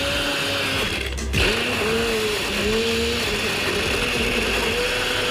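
Countertop blender running steadily, blending ice, milk and custard apple pulp into a frappé.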